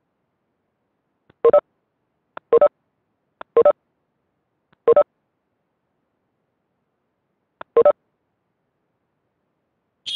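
Video-meeting app's join chime sounding five times as participants enter the call, each a short two-note tone. Four come about a second apart, then one more after a gap of about three seconds, followed by a brief higher blip at the very end.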